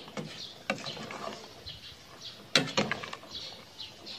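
A metal ladle knocking and scraping against an aluminium pot while a simmering curry is stirred, a few clanks with the loudest about two and a half seconds in.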